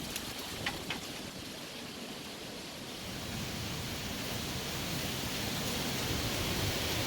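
Heavy rain falling in a storm: an even rushing hiss that slowly grows louder through the second half, with two faint ticks about a second in.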